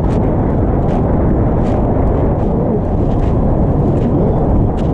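Loud, steady rumble of wind on the microphone, with a few faint clicks.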